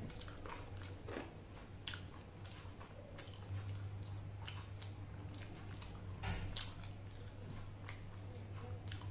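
Close-up chewing of soft, wet food (somay fish dumplings and rice in peanut sauce), with irregular mouth clicks and smacks. A low steady hum runs beneath.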